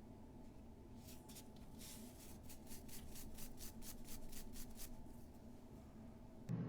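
Faint, quick rubbing strokes, about three or four a second for a few seconds, as small model-car tyres are scrubbed with metal polish. A steady low hum cuts in abruptly near the end.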